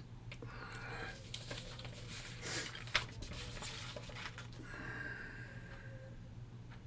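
Hands sorting firework initiators: light rustling and scattered clicks of the wire leads being handled, with one sharper click about three seconds in, over a steady low electrical hum.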